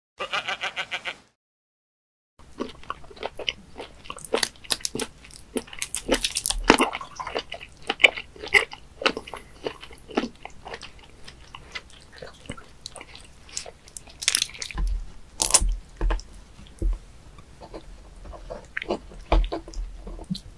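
Close-miked wet mouth sounds of raw live webfoot octopus being chewed and sucked: sticky smacks, squelches and sharp clicks, dense and irregular. Near the end come low knocks on a wooden cutting board as the octopus is handled and cut with a knife. A short, pulsing intro sound lasts about a second at the very start.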